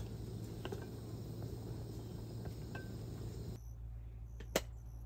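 SOTO camping gas stove burner running with a steady low hiss. About three and a half seconds in, this gives way to a quieter background, with a single sharp click a second later.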